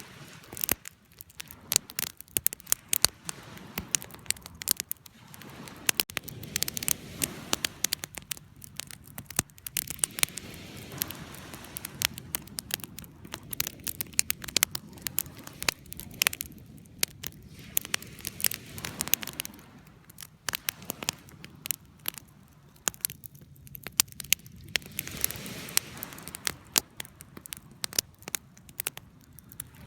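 Campfire crackling, with frequent irregular sharp pops over a low, steady rumble of burning.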